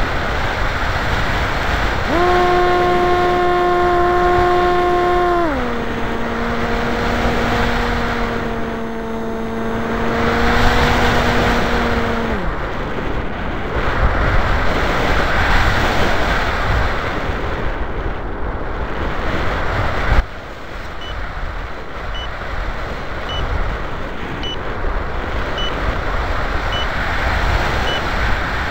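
Wind rushing over the RC flying wing's onboard camera microphone in flight. A motor tone sets in about two seconds in, steps down in pitch a few seconds later and slides away near the middle. In the second half come faint short beeps about once a second.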